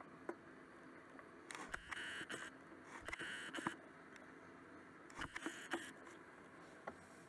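Faint handling noise from a handheld camera being moved: three short bursts of rustling with a few light clicks between them, over a quiet room background.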